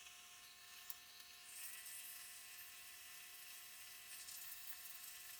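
Near silence: a faint, steady hiss with a thin, constant high whine, which grows slightly about a second and a half in.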